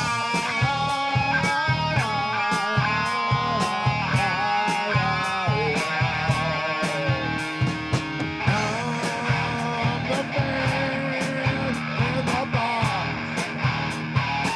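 Rock band playing live, with electric guitar lines bending in pitch over a steady drum beat. About halfway through, the guitar part changes to a fuller, denser sound.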